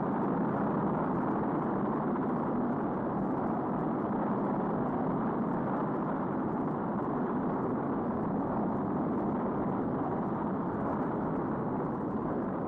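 Saturn V rocket's F-1 engines firing at liftoff: a steady, dense rushing rumble at an even level.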